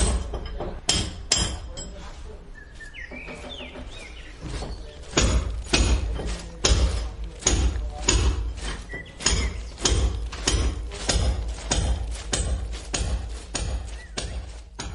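A series of sharp knocks at about two a second, sounding like a sound-effect interlude. They stop for a few seconds near the start, and a short rising chirp is heard during that pause.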